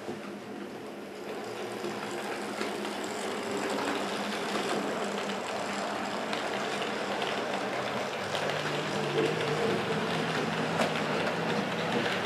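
00 gauge model train running on the layout, its wheels clicking over the rail joints over a steady running hum. It grows louder about a second and a half in as the train comes nearer.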